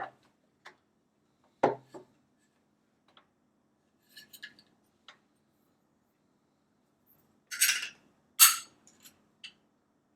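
Metal and hard plastic parts of a smart deadbolt lock being handled and fitted together: scattered clicks and knocks, a few light clinks, then two short scraping rubs near the end.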